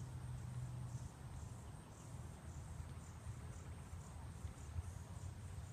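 Faint outdoor ambience: insects chirping in a steady, high-pitched, evenly repeating rhythm over a low steady hum.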